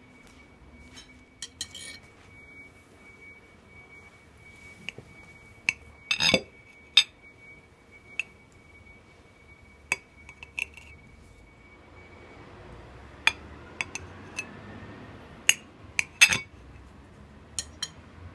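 Knife cutting a baumkuchen on a porcelain plate: scattered clicks and clinks of the blade against the plate, the two loudest ringing briefly, about six and sixteen seconds in.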